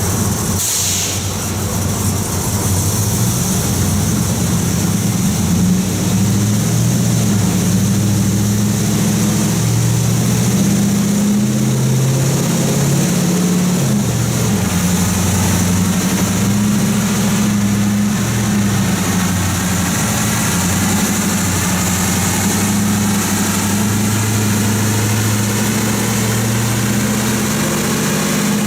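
Cammed Chevy 5.3L V8 with long-tube headers idling, its exhaust note steady in level but wavering unevenly in pitch.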